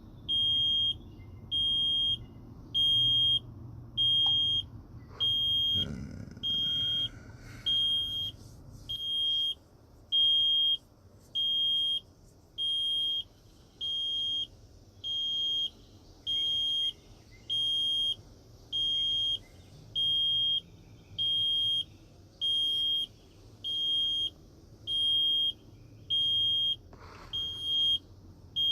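Electronic warning beeper in a truck cab sounding a steady high-pitched beep about once a second, each beep about half a second long, with faint handling knocks now and then.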